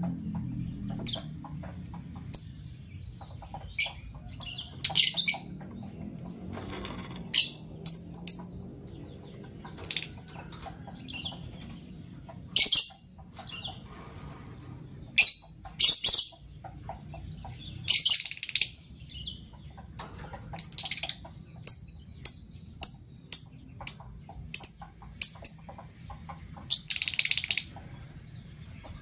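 Lovebirds chirping: short, sharp, high-pitched calls scattered throughout, with a quick run of about ten in a row in the second half, about two a second. Twice, a longer harsh rasping burst lasts about a second.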